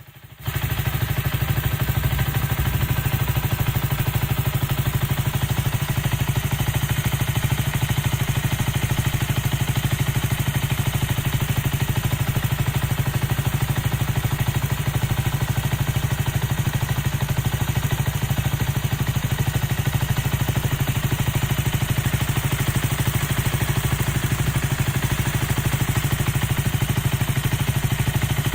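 Honda Little Cub's single-cylinder four-stroke engine, rebuilt with a bore-up kit and new bearings, idling steadily with an even beat. It runs quietly, without the knock of its earlier failed con-rod big end.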